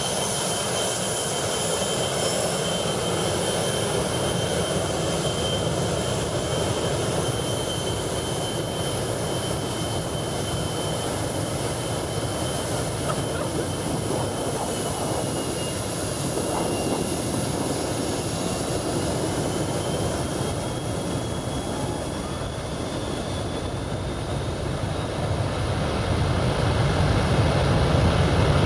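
McDonnell Douglas MD-80-series airliner's rear-mounted jet engines running at the runway threshold: a steady roar with a high whine that dips in pitch and climbs again. Near the end it spools up to takeoff thrust and grows louder and deeper as the jet blast hits.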